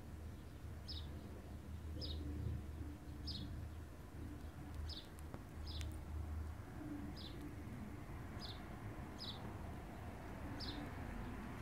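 Short high chirps repeating roughly once a second, each dropping slightly in pitch, over a low steady hum.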